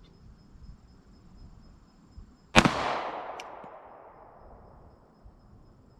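A single .45 ACP pistol shot from a Glock 21 Gen 4 firing a 230-grain Browning X-Point round, about two and a half seconds in. Its report echoes away over about two seconds.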